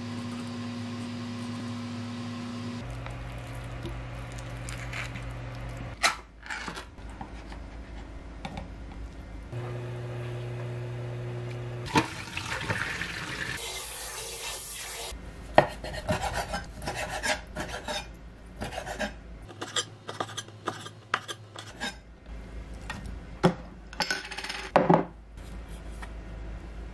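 Kitchen food-prep sounds: a knife cutting avocado on a wooden cutting board with a few sharp knocks. About twelve seconds in, tap water runs into a steel pot. Then wooden spoons scrape and clink as they toss a salad in a glass bowl.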